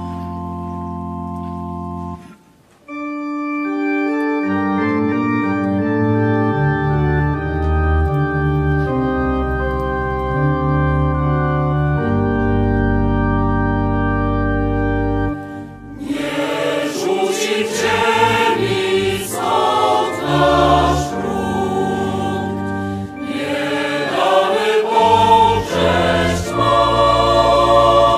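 Church pipe organ playing long held chords; about halfway through, a mixed choir of men and women begins singing a hymn with it.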